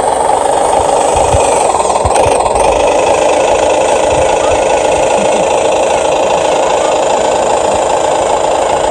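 Huina 1550 remote-control excavator running: a steady, loud mechanical drone that holds level throughout, with a few faint low thumps.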